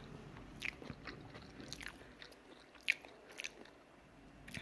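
Close-miked chewing of udon noodles and tofu: a few soft, wet mouth clicks, the sharpest about three seconds in.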